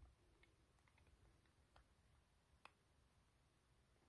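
Near silence with a few faint, scattered clicks of a tiny screw and small metal parts being handled on an Edison Model C phonograph reproducer.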